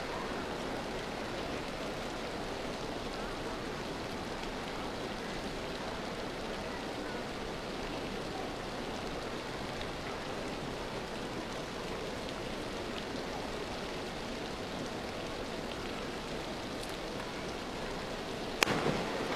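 Steady, even hush of a large indoor diving arena while the crowd waits quietly, with no distinct events. A single sharp crack comes near the end.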